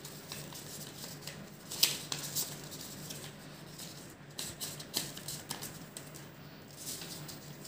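Paper strip rustling and crackling as it is folded and handled, in scattered short crisp crackles, the sharpest a little under two seconds in, over a faint steady hum.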